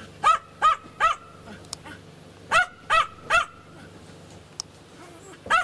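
A black dog with tan markings barking: three quick barks, a pause of about a second and a half, three more, then a single bark near the end.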